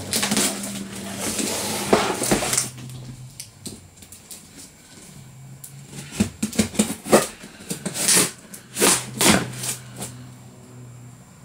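A large cardboard shipping box scraping and sliding as it is shifted and laid down. A few seconds later comes a run of short, quick scrapes and rips on the cardboard as the box top is worked at. A low steady hum sits underneath.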